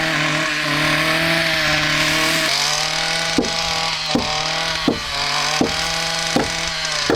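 Petrol chainsaw running at high revs, cutting through a wooden roof joist. Its pitch dips slightly about two and a half seconds in, and from then on a short sharp tick recurs about every three-quarters of a second.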